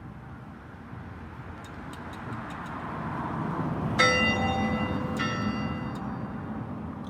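A bell struck twice, about a second apart, near the middle, each stroke ringing out and slowly dying away. A low rushing noise swells and fades beneath it.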